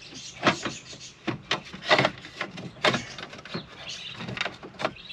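Irregular clicks, knocks and scrapes of hand tools and car parts being handled during disassembly work on the car.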